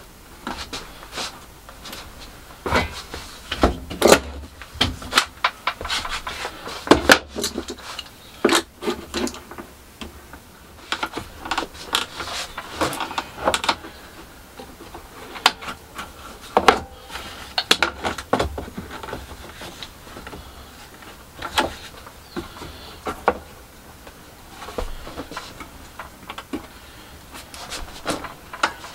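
One-handed bar clamps being set and squeezed tight around a curved nosecone: a run of sharp clicks and clacks from the clamp triggers, jaws and bars, busiest in the first half and thinning out later.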